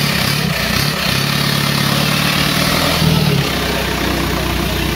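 Engine of a modified Suzuki Samurai off-road trial 4x4 running under throttle at a steady pitch, then easing to a lower, steady idle about three and a half seconds in.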